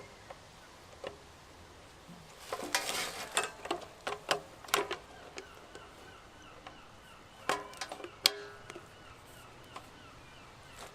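Knocks and rattles of metal gas-barbecue parts being handled and fitted together. There is a run of irregular rattling knocks a few seconds in, then two sharp knocks a little under a second apart.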